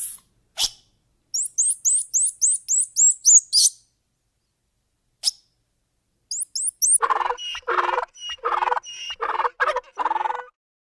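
Animal calls: a rapid run of about ten very high, falling chirps in the first few seconds, a short burst of similar chirps a little after halfway, then a run of lower, evenly repeated calls at about two a second near the end.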